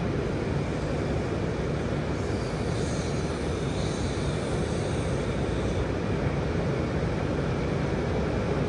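Steady background noise of a shopping mall concourse: an even low rumble and hum with no distinct events.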